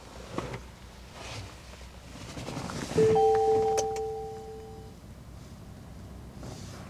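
An Ora Funky Cat's in-car warning chime sounds once about three seconds in: a sudden two-note tone that fades out over about two seconds. It comes while the car is showing power and dynamic system fault warnings. A small click follows partway through the chime.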